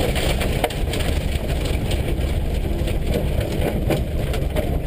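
Subaru rally car rolling slowly onto a gravel and grass pull-off on a flattened right-front tire, engine running low. A dense, irregular crunching and clicking of gravel under the tires runs throughout.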